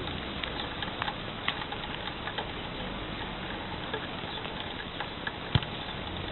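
Scattered taps and knocks of five-a-side football play, ball kicks and running feet, over steady background noise, with one louder thud about five and a half seconds in.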